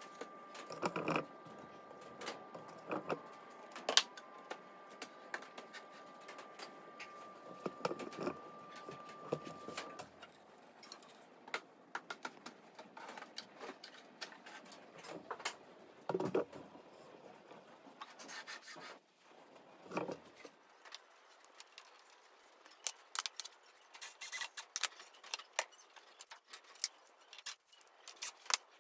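Plywood CNC frame parts being handled and fitted by hand: scattered knocks, taps and clicks of wooden panels and screws, with a few louder knocks among them.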